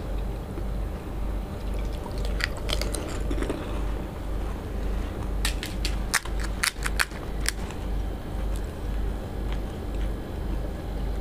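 Crisp fried fuchka (panipuri) shells crackling as they are cracked open with the fingertips for filling: a few sharp crackles about two and a half seconds in and a quicker run of them around six to seven seconds in, over a steady low hum.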